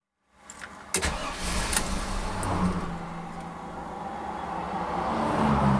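Chevrolet 454 big-block V8 in a motorhome being cranked by the starter and starting, with a sharp clunk about a second in as the starter engages. The engine's fuel pump is dying.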